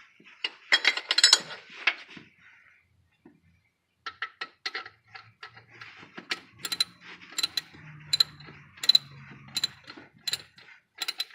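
Ratchet wrench clicking in an even rhythm, about three clicks a second, as the new alternator's mounting bolts are run in. A short clatter of metal on metal comes about a second in.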